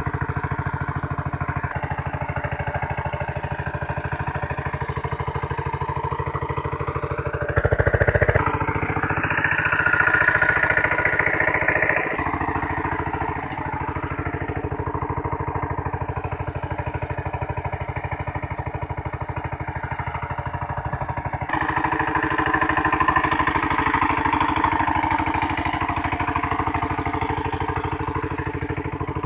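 Power tiller's single-cylinder diesel engine running steadily under load as its rotary tiller churns the soil. The engine gets louder and its note rises about a quarter of the way in and again about three-quarters through.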